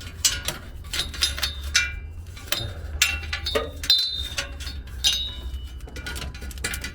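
Humvee speedometer cable in its metal sleeve being pulled out under the truck, clinking and rattling against the chassis in a quick run of sharp metallic clicks, some with short ringing tones. A steady low hum runs underneath.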